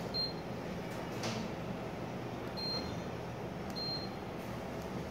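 Touchscreen control panel of a Winterhalter PT-M glass washer giving three short high beeps as its keys are pressed, over a steady low hum.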